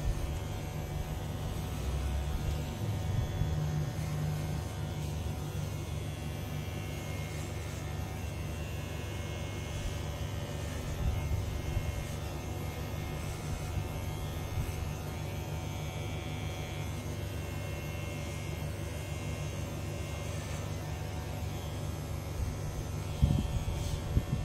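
Cordless electric hair clipper buzzing steadily as it cuts short grey hair at the back of the head.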